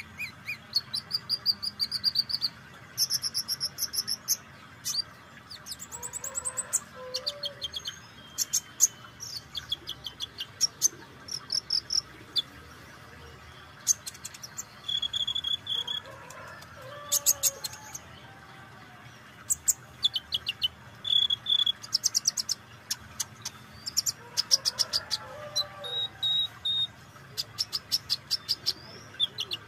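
Sunbird (kolibri ninja) calling: many sharp, high-pitched chips and short rapid trills in irregular bursts, with brief pauses between. A quieter, lower warbling phrase recurs about every nine seconds behind them.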